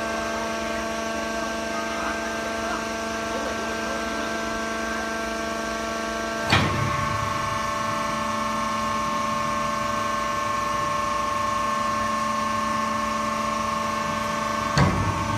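Horizontal cardboard baler's hydraulic power unit running with a steady hum, with a sharp clunk about six seconds in, after which the hum changes tone as the machine shifts under load, and another clunk near the end.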